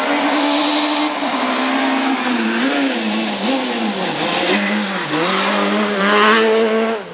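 Rally car engine revving hard. Its pitch dips briefly several times and climbs again, as on lifts and gear changes, and it drops away suddenly near the end.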